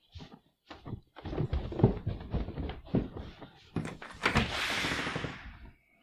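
Footsteps and a door being opened: a run of short thumps and knocks, followed near the end by a rushing hiss of about a second and a half.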